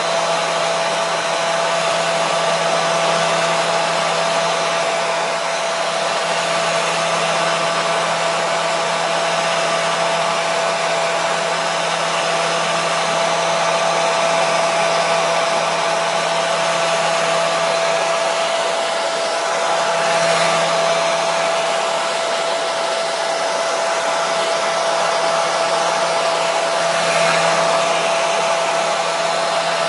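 Hair dryer running continuously: a steady rush of blown air with a constant motor whine and a low hum underneath.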